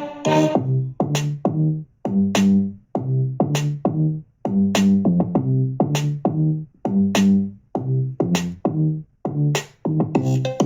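Electronic dance track with a punchy drum-machine beat and short pitched bass notes, played at full volume through an Ultimate Ears MiniRoll Bluetooth speaker.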